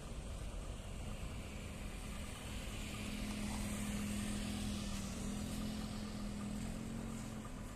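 Boeing 737-800's CFM56-7B jet engines at takeoff thrust during the takeoff roll: a steady roar with a low hum, swelling about three seconds in.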